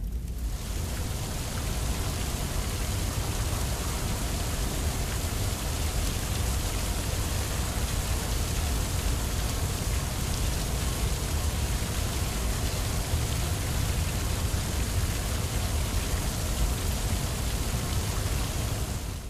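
Fire hose spraying water in a cartoon sound effect: a steady, unbroken rushing hiss.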